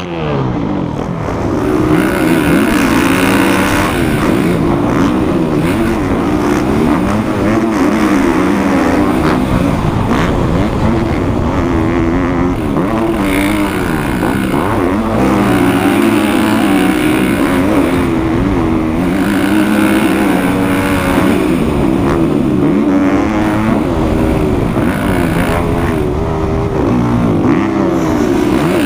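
Motocross dirt bike engine revving hard and shifting, its pitch climbing and dropping over and over as the bike accelerates and backs off around the track.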